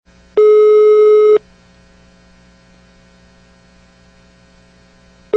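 Telephone ringback tone heard by the caller while the line rings: one steady tone of about a second, then about four seconds of low hum, with the next tone starting at the very end. This is the Brazilian ringing cadence, one second on and four off.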